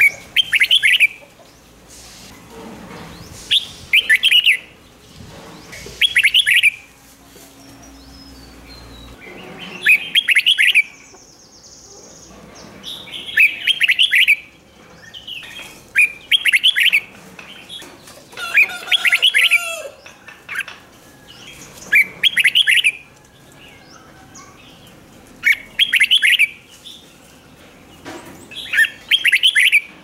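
Red-whiskered bulbul singing short, bright warbled phrases, one every two to three seconds, about ten in all.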